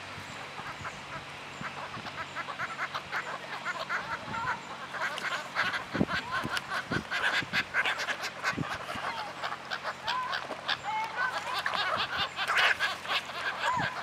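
A flock of gulls and other waterbirds on a pond calling over each other in many short calls, which grow denser and louder from about five seconds in.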